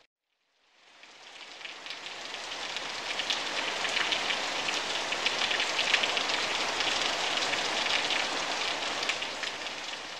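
Rain falling: a dense hiss of many small drops that fades in over the first two seconds, holds steady, and begins to fade out near the end.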